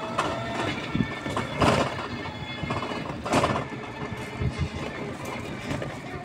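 Ride in a motorized tricycle: the body and frame rattling over the road, with a faint steady motor whine and several louder jolts, about a second in, near two seconds and a little past three seconds.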